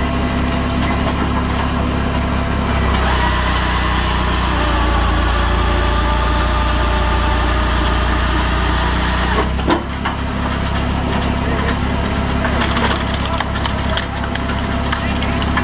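Homemade tractor-powered hydraulic firewood processor working a beech log, its engine and hydraulics running steadily underneath. The wood is cut and split, with a louder, harsher stretch a few seconds in that ends in a sharp crack, and more splintering cracks of splitting wood toward the end.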